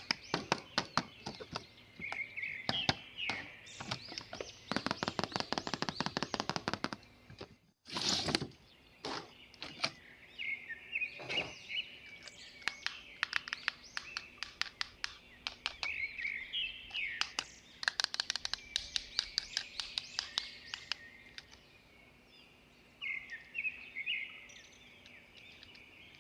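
Rapid clicks and taps of plastic toy parts being handled, in dense runs, with short high chirping sounds several times.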